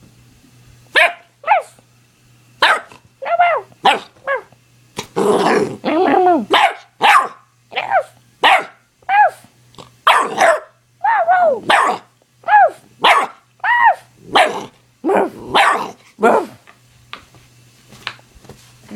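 Nine-week-old pit bull puppy barking in a string of short, high yaps with brief pauses between them. About five seconds in comes a longer, rougher run of barking.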